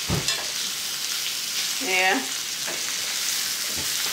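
Chicken tenders sizzling in oil in a cast-iron skillet, with a few sharp clicks of metal tongs against the pan as the pieces are turned. A short pitched sound comes about two seconds in.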